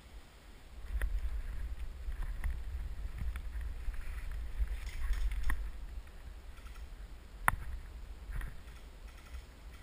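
Footsteps through dry fallen leaves with a low rumble on the microphone, and several sharp clicks or snaps, the loudest about seven and a half seconds in.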